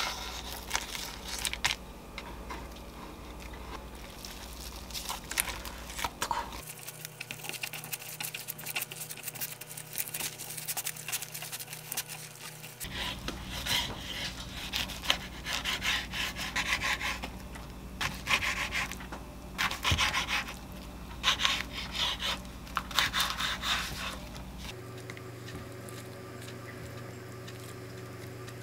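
Hands rolling a kimbap on a wooden cutting board, the dried laver sheet rustling. From about halfway through, a kitchen knife saws through the roll, the laver crackling with each stroke.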